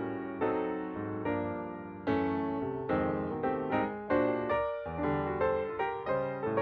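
Background piano music: a steady run of struck notes with chords, each note dying away.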